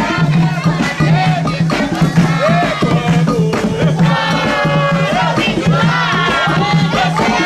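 A group of voices singing an Umbanda ritual chant (ponto), with shouts and a steady drum beat at about two beats a second, and rattles.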